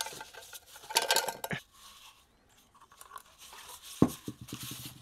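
Handling noise from a steel gun magazine being worked apart by hand: scrapes and light metallic clicks about a second in, then a sharp knock about four seconds in followed by a few quick ticks.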